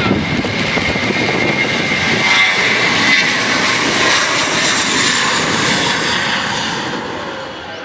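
An airliner passing close, its engines loud, with a steady high whine over the rushing noise, fading away near the end.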